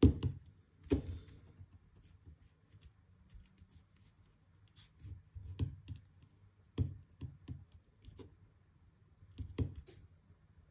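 Favero Assioma Pro MX SPD power meter pedals being handled and set down on a table: a sharp knock at the start and another about a second in, then scattered light clicks and taps.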